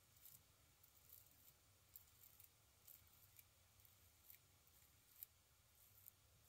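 Faint, crisp scraping strokes of a double-edge safety razor cutting stubble through shaving lather, coming as a quick irregular series of short strokes.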